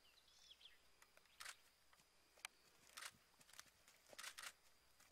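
Near silence: a faint outdoor hush with a few faint bird chirps near the start and scattered faint ticks.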